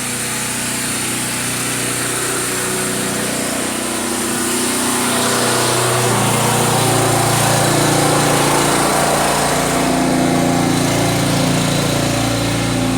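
A small engine from outdoor machinery running steadily and loudly, its hum swelling louder about five seconds in and easing slightly near the end. It is noise the speaker apologises for and puts down to constant construction nearby.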